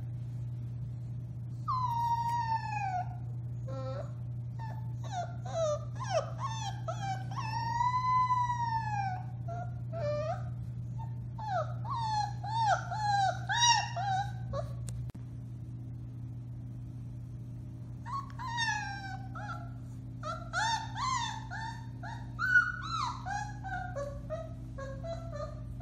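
Four-week-old Alaskan Malamute puppies howling and whimpering: a string of high, wavering cries that rise and fall in pitch, mostly short, with one longer arching howl about eight seconds in. The cries pause for a few seconds past the middle, then start up again.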